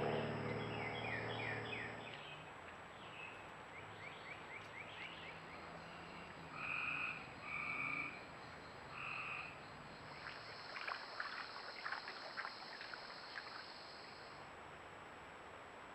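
Frogs calling: three short trilled calls in the middle, and runs of rapid clicking calls before and after them.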